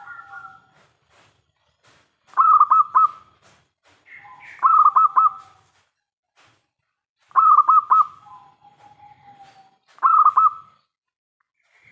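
Zebra dove (perkutut) cooing: four phrases, each a quick run of three or four ringing notes followed by a softer, lower drawn-out coo, with pauses between phrases.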